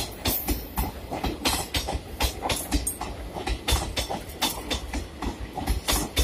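Blue Indian Railways passenger coaches rolling past close by: the wheels clack over the rail joints in a rapid, uneven run of knocks over a steady low rumble.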